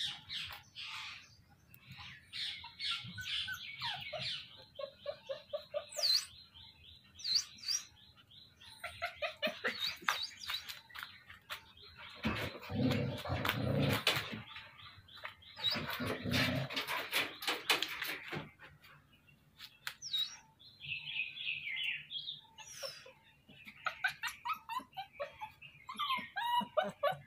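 American Bully and Lhasa Apso puppies playing, with many short high-pitched yips and whimpers mixed with bird chirps. Two louder noisy stretches come in the middle.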